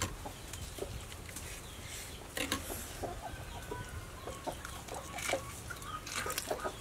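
Chickens clucking in the background, with scattered light clicks.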